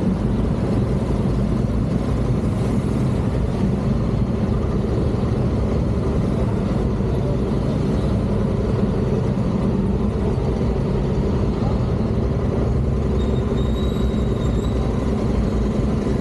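Honda Africa Twin CRF1100's parallel-twin engine running steadily at low speed as the bike rolls along, an even low rumble with no revving.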